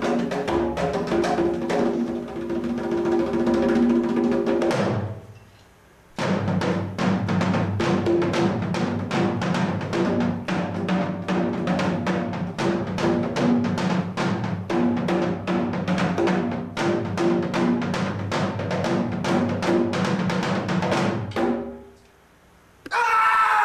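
Music with a fast, steady drum beat over sustained low notes. It breaks off briefly about five seconds in, starts again, and stops a couple of seconds before the end. A short, loud voice follows near the end.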